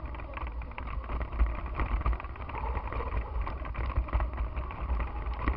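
Onboard sound of an electric go-kart being driven hard over a grass lawn: a low, pulsing rumble and wind buffeting on the microphone, with frequent rattles and knocks as the kart bounces over the ground.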